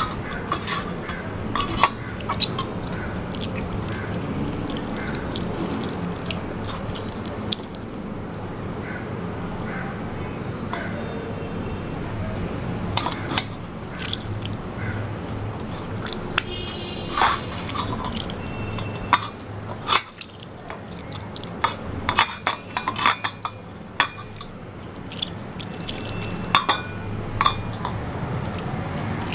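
Wet squishing and splashing as a hand squeezes and mashes a soft tomato in water on a stainless steel plate, with scattered sharp clicks and taps of fingers and pulp against the plate. A steady low hum runs underneath.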